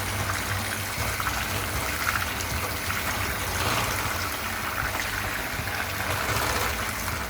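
Eggs, sugar and lemon juice being beaten together in a bowl for lemon curd: a steady churning of liquid with a low hum underneath, stopping right at the end.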